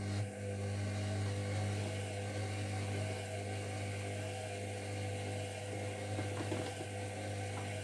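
Zerowatt/Hoover Performa 1000 washing machine running at the start of its wash cycle: a steady electric hum with a rushing, hissing noise over it.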